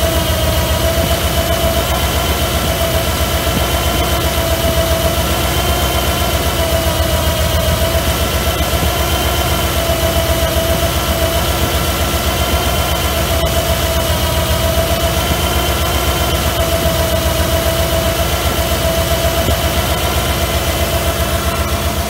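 Early Ford Bronco's engine idling steadily, with a steady whine over the idle, while it runs to bleed air out of the cooling system.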